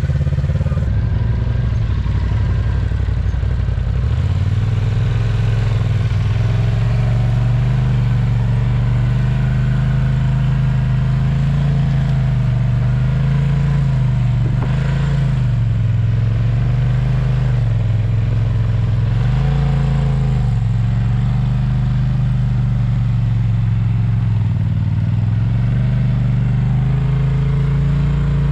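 Side-by-side UTV engines running under load as they climb a steep, rutted dirt trail. The engine note steps up about four seconds in, then dips and picks back up several times.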